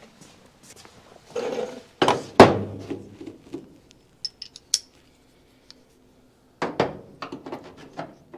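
Small steel parts, bolts and a hinge nut plate, clinking and knocking against the car's sheet-metal hinge pocket as they are worked into place by hand. There are two sharp knocks a couple of seconds in, then scattered light pings and a run of quick clicks near the end.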